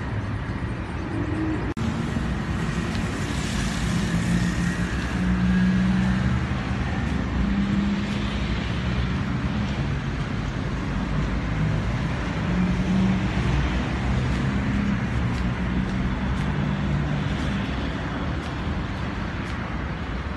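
City street traffic: a steady wash of car and bus engines running and passing, with a low engine hum that swells and fades.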